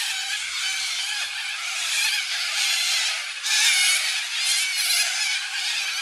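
A flock of corellas screeching together: a dense, shrill chorus of overlapping harsh calls, swelling louder about three and a half seconds in.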